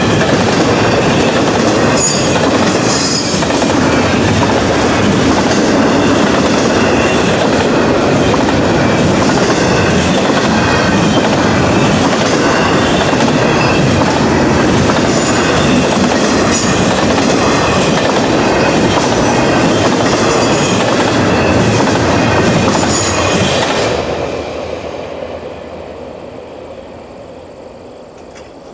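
Double-stack intermodal freight train rolling past: a steady rumble and clatter of wheels over the rails, with brief high wheel squeals now and then. The last car clears about 24 seconds in and the sound fades away.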